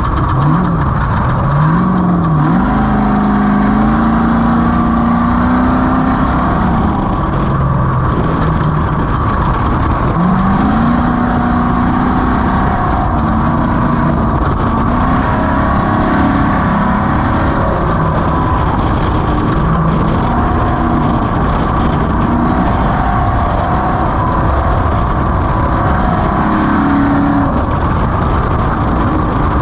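Off-road race vehicle's engine running hard, its pitch rising and falling again and again as it accelerates and backs off, over a constant rough rumble.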